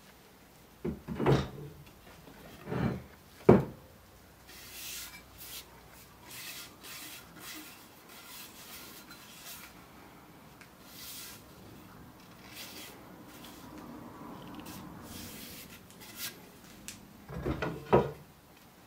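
A few dull knocks, the loudest about three and a half seconds in, then soft rubbing and scraping, then another short cluster of knocks near the end.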